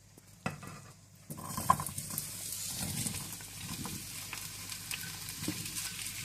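Potatoes frying lightly in a little oil in a frying pan: a steady sizzle that starts suddenly about a second in, with a couple of knocks of the spoon or pan and small spitting clicks through it.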